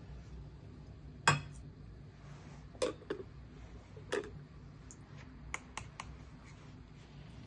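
A series of short knocks and clinks as V60 coffee drippers, glass servers and scales are handled and set down on a table, about seven in all, the loudest about a second in.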